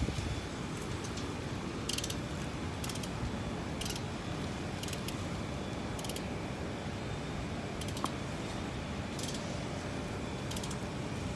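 Light metallic clicking in short bursts, roughly once a second, as bolts and hand tools work on steel cable ladder join plates, over a steady background noise.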